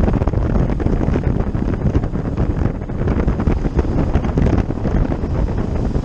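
Wind buffeting the microphone: a loud, uneven rumble with many small crackles.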